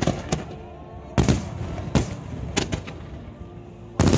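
Aerial fireworks shells bursting overhead: a series of sharp bangs, the loudest just over a second in, then a rapid cluster of bangs near the end.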